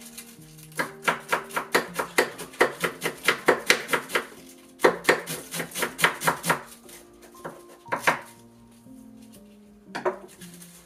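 Kitchen knife shredding cabbage on a wooden cutting board: quick runs of cuts, about five a second, with a short pause a little after four seconds in and a few single cuts near the end. Soft background music plays underneath.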